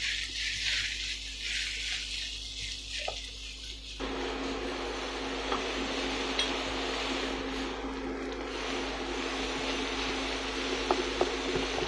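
Kimchi fried rice sizzling in a nonstick pan as a wooden spatula stirs and scrapes through it. About four seconds in, the hiss abruptly gets fuller and lower, with a steady low hum under it, and a few sharp clicks of the spatula against the pan come near the end.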